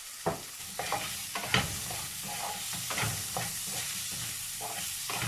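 Asparagus with garlic and onions sizzling in a frying pan while a utensil stirs them, scraping and knocking against the pan several times at irregular moments.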